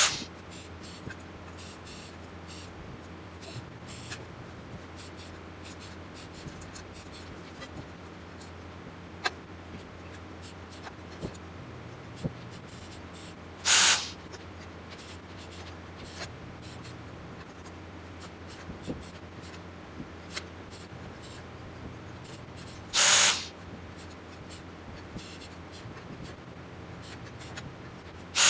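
Low-current TIG welding arc on thin stainless steel sheet, struck twice in short tack-weld bursts of hiss, each about half a second, about 14 and 23 seconds in. Between the tacks there are small faint clicks from the workpiece being handled.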